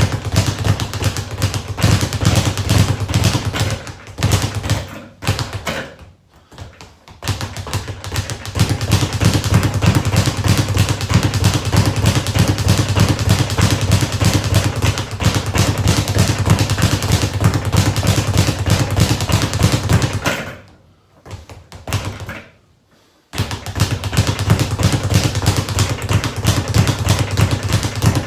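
Speed bag being punched in quick succession, the bag rattling against the rebound platform in a fast, continuous drumming of thuds. Twice the drumming breaks off for a second or two, about a quarter and three quarters of the way through, then picks up again.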